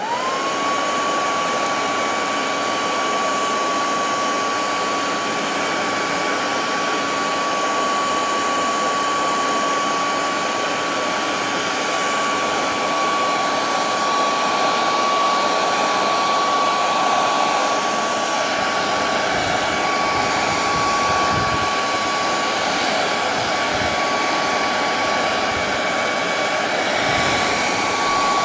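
Hair dryer running on its hottest, fastest setting: a steady rush of air with a high motor whine that rises in pitch at the very start as the motor speeds up, then holds level.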